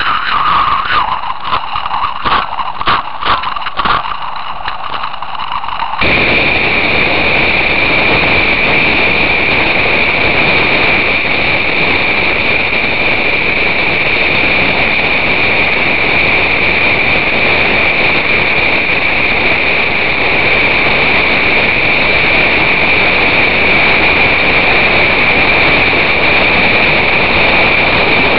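Wind and water rushing past a racing trimaran's hull at speed, picked up by a camera mounted on the bow. For the first few seconds it crackles and knocks unevenly, then about six seconds in it abruptly turns into a louder, even rush with a steady high tone over it.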